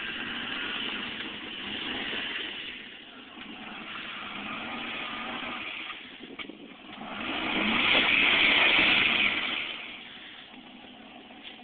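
Chevy 4x4 truck's engine revving as it tries to pull out of the mud it is stuck in. The revs swell to their loudest from about seven to nine and a half seconds in, then drop back.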